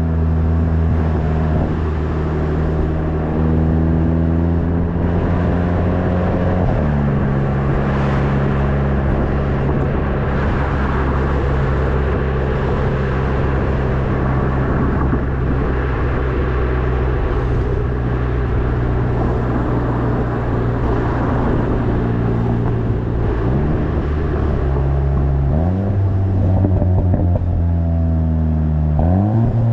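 VW Golf 7.5 GTI TCR's turbocharged 2.0-litre four-cylinder sounding through its stock stainless-steel exhaust, which has 98,000 km on it. The engine holds a steady note, drops abruptly in pitch about seven seconds in, and rises in revs several times near the end.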